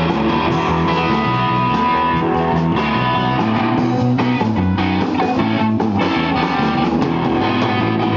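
Live rock band playing a surf-rock instrumental: electric guitar and bass over a drum kit, loud and steady.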